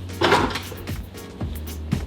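Background music with a steady bass line, with a brief rustling clatter of hands handling things about a quarter second in and a few light clicks after.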